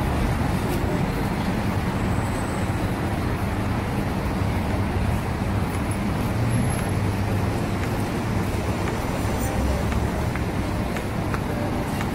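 Steady street traffic noise: a continuous low rumble of passing road vehicles.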